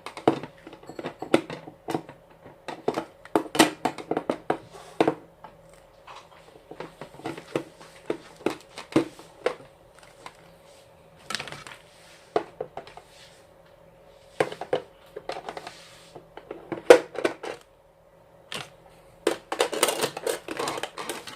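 Irregular clicks, knocks and light clatter of things being handled and put into a small portable fridge.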